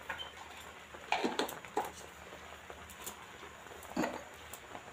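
Thick milk boiling down in a large aluminium pan, with a few soft bubbling pops over a faint steady background.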